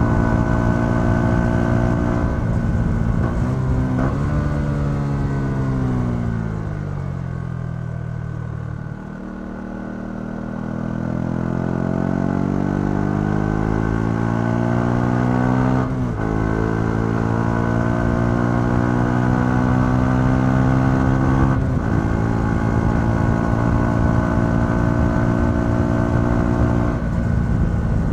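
Yamaha XSR 125's single-cylinder four-stroke engine on its stock exhaust, heard from the rider's seat under way. The note falls off as the bike slows about four seconds in, then climbs again from about ten seconds as it accelerates. Gear changes briefly break the note around sixteen and twenty-two seconds in.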